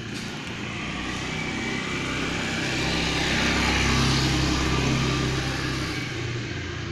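A motor vehicle driving past close by: engine hum and road noise swell to a peak about four seconds in, then fade away.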